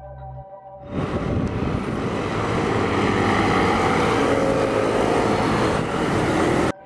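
City street traffic: cars and motor scooters driving past, a steady wash of engine and tyre noise. It comes in about a second in, as a short bit of background music fades, and cuts off suddenly near the end.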